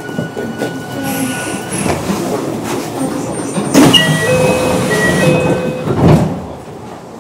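Onboard sound of a Kintetsu 9820-series electric train: a continuous rumble, with two loud thumps about four and six seconds in and short steady tones between them.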